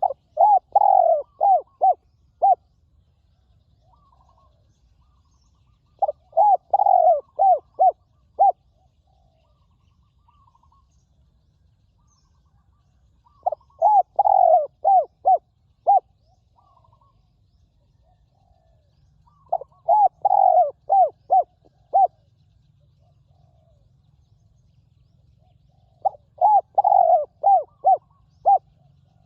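Spotted doves cooing: a loud phrase of about five coos comes roughly every six seconds, with fainter answering coos from a second dove in the gaps.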